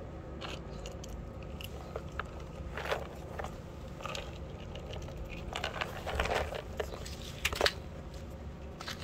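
Cat crunching and chewing small dry treat cubes, in irregular clusters of crisp crunches.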